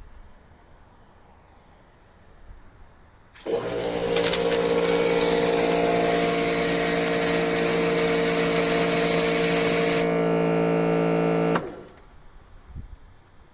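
Giraffe Tools G30 electric pressure washer running: its motor hums steadily under the loud hiss of the water jet for about six seconds. The spray cuts off suddenly, the motor runs on for about a second and a half, then shuts off.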